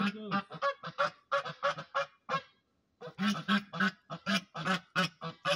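Domestic geese honking: a rapid series of short honks, about four a second, in two runs with a brief pause about halfway through.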